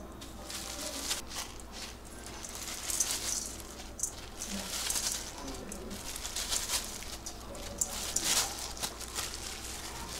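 Irregular rustling and crinkling of disposable plastic gloves as salt and a ground seasoning are shaken from jars over shredded chicken in a stainless steel bowl.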